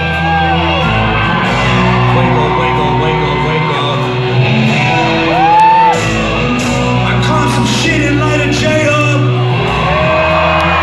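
Live concert music played loud through a large hall's sound system, with steady bass notes, while voices in the crowd yell, whoop and sing along. A louder yell rises and falls about five and a half seconds in.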